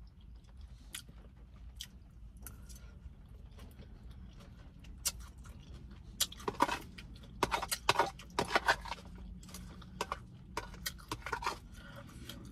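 Close-up chewing and mouth clicks from eating tuna salad. The clicks are sparse at first and come thicker in the second half, over a faint low hum.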